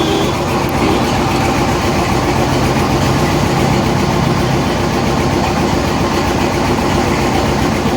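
Engine idling steadily, with a low hum that drops away a little past halfway.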